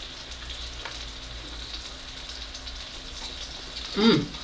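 Steak and shrimp sizzling steadily on a hibachi cooking stone heated to about 500 degrees. A brief vocal murmur comes near the end.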